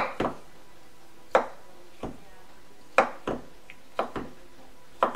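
Chef's knife chopping olives on a round wooden cutting board: sharp knocks of the blade on the wood, about eight in five seconds, often in quick pairs.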